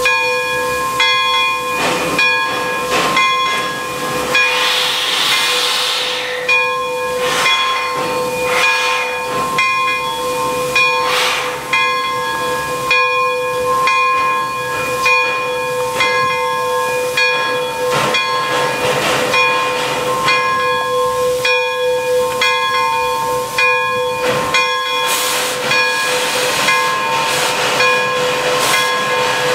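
Pere Marquette 1225, a 2-8-4 Berkshire steam locomotive, hissing steam over a steady ringing tone, with sharp knocks coming every second or so.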